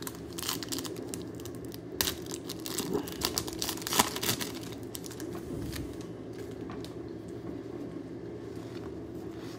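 Foil wrapper of a pack of trading cards crinkling and tearing as it is opened, with cards rustling in the hands, over roughly the first half. After that only a low steady background hum.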